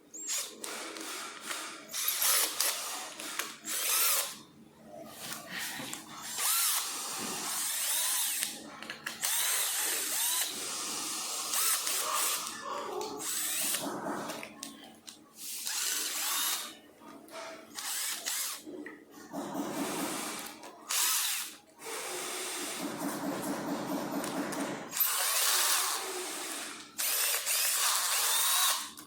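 Power drill running in repeated bursts of one to a few seconds, stopping and starting many times.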